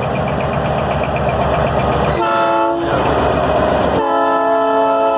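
Train horn sounding twice over the low rumble of a passing train: a short blast about two seconds in, then a longer blast near the end.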